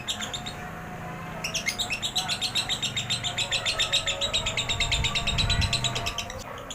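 Lovebird singing its long chattering 'ekek' song: a fast run of sharp, high chirps lasting about five seconds, after a short burst at the very start.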